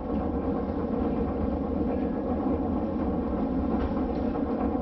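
Sakamoto Cable funicular car running downhill on its rails, heard from inside the car as a steady low rumble.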